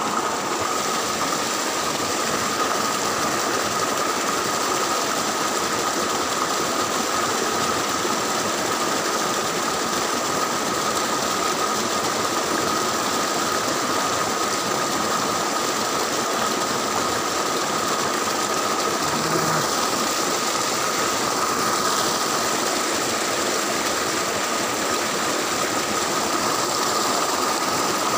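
Shallow stream rushing and splashing over rocks, a steady loud wash of water noise, with a thin steady high tone above it.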